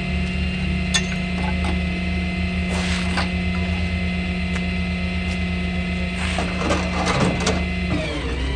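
Tow truck engine idling with a steady low hum, while the wheel-lift's metal tire straps and ratchets click and rattle as they are tightened on the car's front wheels. The clatter is busiest near the end.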